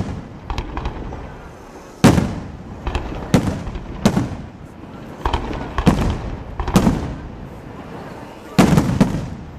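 Fireworks bursting in a series of loud bangs, roughly one a second from about two seconds in, each followed by a rumbling echo, with a quick cluster of bangs near the end.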